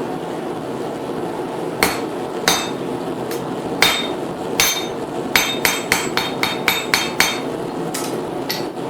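Hand hammer striking a hot cut on red-hot steel bar over the anvil, splitting the bar's end to form the fork's tines, each blow with a bright metallic ring. A few spaced blows are followed by a quick run of about five strikes a second, then two more, over a steady background noise.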